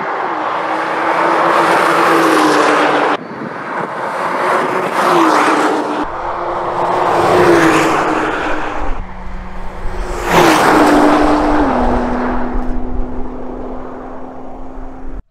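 Nissan GT-R's twin-turbo V6 driving past at speed on a circuit, its engine note stepping down in pitch with several quick upshifts. The sound is cut together from a few short takes that break off abruptly.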